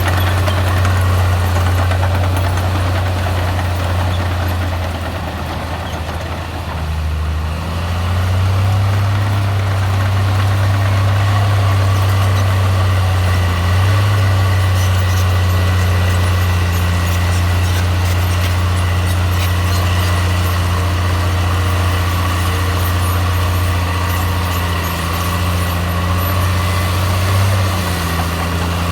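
Komatsu bulldozer's diesel engine running steadily with a deep hum, dipping briefly about six seconds in before coming back up.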